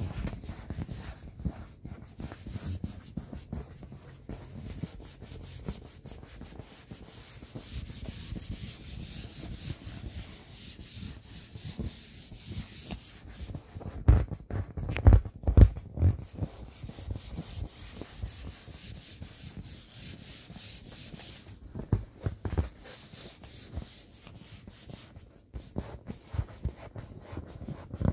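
A hand rubbing and stroking the taut vinyl skin of an inflated inflatable wolf toy, a continuous rubbing with a few louder bumps about halfway through.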